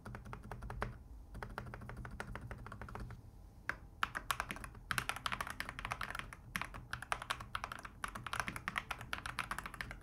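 Steady typing on a Keychron C2 Pro 8K full-size mechanical keyboard with Keychron Super Red linear switches. Its spacebar is fitted with a single silent switch, so the space presses are muted and the main keys' sound comes through. The typing pauses briefly a little past three seconds in.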